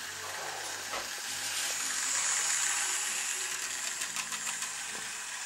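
Electric model railway train running along the track: a steady hissing whirr from the motor and wheels, loudest around the middle, with faint ticks near the end.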